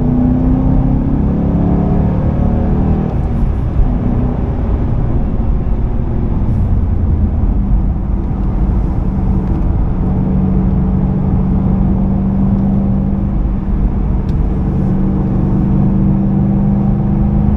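2005 Ford Mustang GT's 4.6-litre V8, heard from inside the cabin, accelerating with its pitch rising over the first few seconds, then running at a steady pitch.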